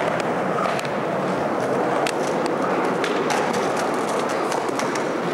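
Skateboard wheels rolling over pavement, a steady rolling noise, with a run of sharp clicks and clacks about two seconds in.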